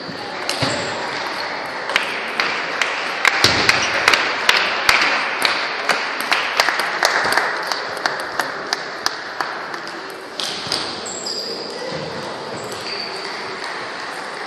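Celluloid-type table tennis balls clicking off bats and tabletops from rallies in a busy sports hall, a quick irregular run of sharp ticks that thins out after about ten seconds, over a murmur of voices.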